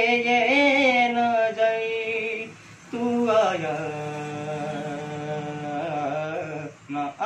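A young man singing solo without accompaniment, holding two long, wavering notes of a Hindi film song, with a short breath break about three seconds in.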